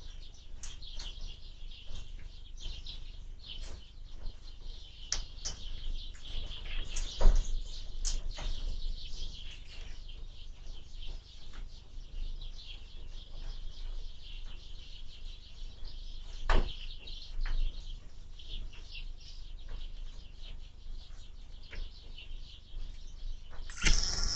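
Small birds chirping at a window bird feeder, with wind rumbling on the microphone and a few sharp knocks, the loudest about seven seconds in.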